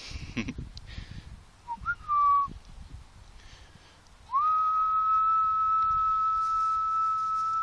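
A person whistling: a short upward-sliding whistle about two seconds in, then a long steady whistled note from a little past four seconds on. Rustling and handling noise in the first second.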